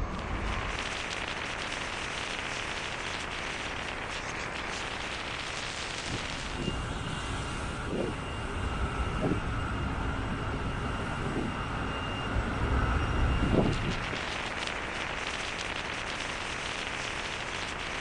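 Steady rushing noise of wind and sea on a ship under way, with a faint high whine and a few short, louder low surges between about six and fourteen seconds in.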